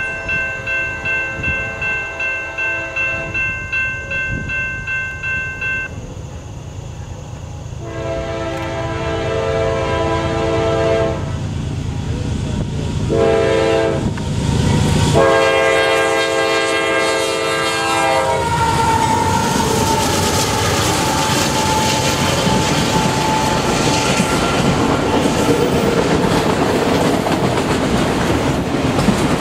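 Grade-crossing bell ringing in quick, even strokes. Then a freight locomotive's horn sounds three blasts, long, short and long, as it approaches the crossing. About eighteen seconds in, the locomotive passes with a falling engine tone, and the autorack cars follow, rumbling and clacking over the rails.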